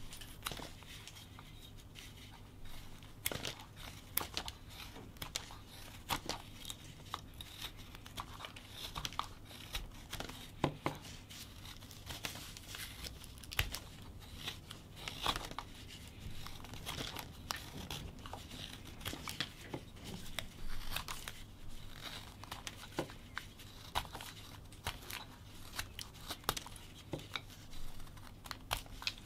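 Whittling knife slicing shavings off a wooden block by hand, an irregular run of short crisp cuts as the sides are tapered.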